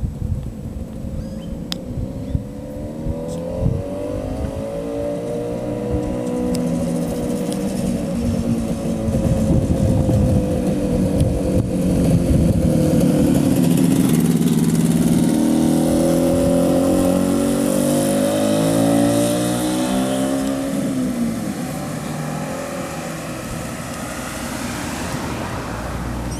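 1964 Suzuki T10's two-stroke twin engine riding by: it comes closer and grows louder, is loudest as it passes about halfway through, then fades down the street. The engine note rises and falls with the throttle.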